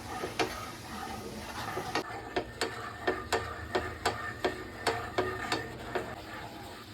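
A spoon or spatula knocking against a pot in a steady rhythm while stirring, about three or four strikes a second, starting about two seconds in and stopping near the end.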